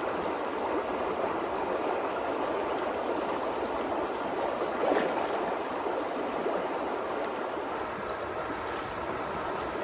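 Upper Rogue River water rushing steadily, swelling briefly about halfway through.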